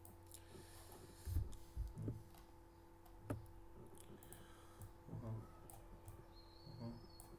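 Faint scattered clicks and taps from a laptop's keyboard and mouse or touchpad as the PDF is zoomed and scrolled, with a few louder knocks in the first half, over a faint steady electrical hum.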